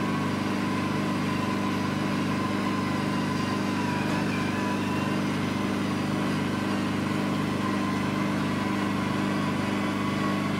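Steady electric hum of a VelaShape-type vacuum body contouring machine running, its vacuum pump feeding the roller handpiece. A low drone with a fainter, higher whine above it.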